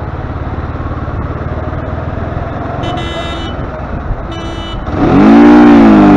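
Chopper motorcycle engine running with a steady low pulse in city traffic, with two short vehicle horn beeps a little past halfway. Near the end the engine is revved hard, its pitch rising and then falling; this is the loudest sound.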